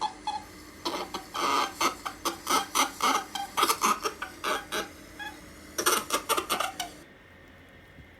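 Holland lop rabbit vocalising in quick runs of short, rapid calls, which stop about a second before the end.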